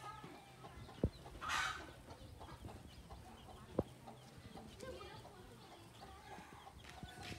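Chickens clucking and calling in short bursts, with a short harsh call about a second and a half in. Two sharp clicks come about one second and nearly four seconds in.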